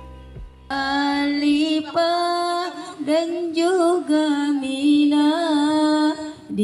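A short tail of background music gives way, under a second in, to a woman singing an Indonesian Islamic devotional song about the Hajj pilgrimage. Her voice holds long, wavering notes with ornamented turns.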